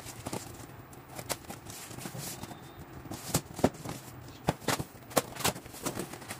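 Scissors cutting packing tape on a cardboard shipping box: irregular sharp snips and clicks, with the cardboard being handled, the clicks coming more often in the second half.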